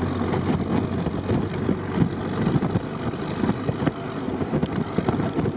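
Jeep Willys running along on asphalt, its engine note steady under a dense rumble of wind and road noise in the open-topped cab, with a few short rattles in the second half.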